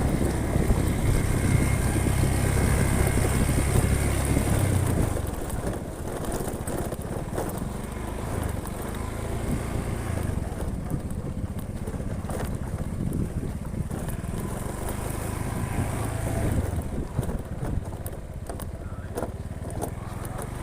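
Vehicle engine and road noise while driving, the engine louder for the first five seconds, then lower with a couple of swells.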